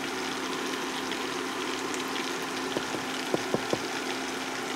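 Butter and oil sizzling in a frying pan on an induction cooktop, over a steady hum from the cooktop. A few light clicks come about three seconds in.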